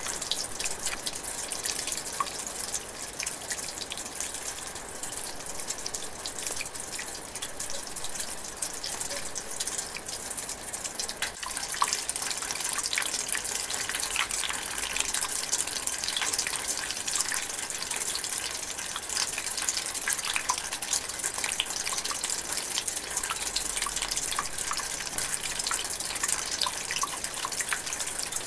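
Light rain drizzling in a forest: a steady patter of many small drops with an even hiss, a little denser from about halfway on.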